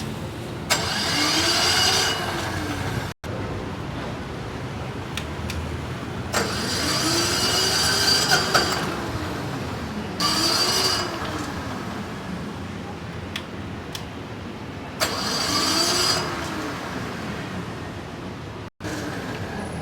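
SDG12800E diesel generator being cranked on its electric starter, four short cranking attempts with the pitch rising and then falling back each time. The engine does not keep running, a sign of hard starting.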